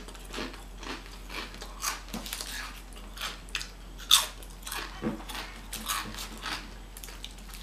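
Close-up crunching and chewing of crisp snack chips: a run of sharp crunches, the loudest about four seconds in.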